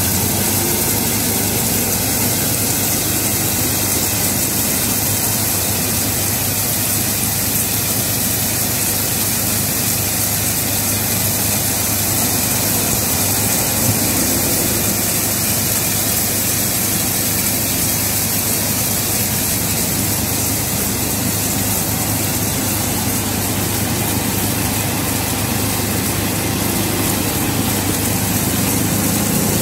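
Gas-fired drum roaster for sunflower seeds running: the burner flame hisses steadily inside the turning drum over a low, even motor hum.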